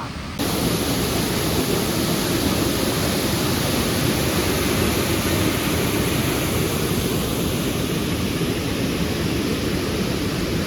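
Waterfall's falling water making a steady, even rush of noise, cutting in abruptly about half a second in.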